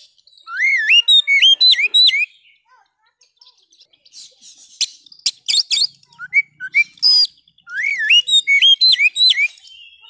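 Oriental magpie-robin (kacer) singing. A fast phrase of clear whistled notes sweeping up and down comes twice, about a second in and again near the end. Between the phrases come sharp chips and short scratchy notes.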